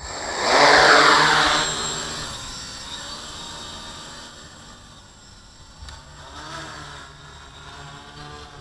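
F450 quadcopter's motors and propellers whirring as it passes close over the camera, loudest about a second in with the pitch falling, then fading to a fainter steady buzz as it flies away.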